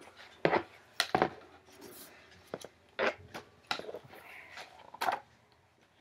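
Pages of a large illustrated book being turned and handled: a series of short, sharp paper crackles and rustles, several in a few seconds.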